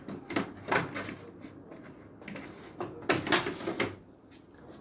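Plastic detergent dispenser drawer of a front-loading washing machine being handled and slid back into its housing: a series of short plastic clacks and knocks, the loudest a couple about three seconds in.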